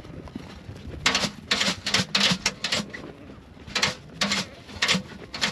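A flock of sheep on the move: from about a second in, a string of short, loud, harsh sounds, several a second at first, then spaced out.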